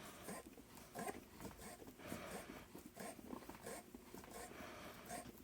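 Faint, irregular scraping and light metallic clicks as the steel screw of a jig bore vise is worked back and forth by hand.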